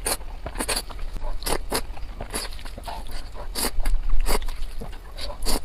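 Close-miked eating: irregular crisp crunches of bites and chewing, several a second.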